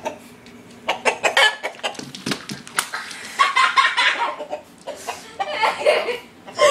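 A chicken clucking in a run of short, sharp clucks, then giving louder, drawn-out squawks about halfway through and again near the end.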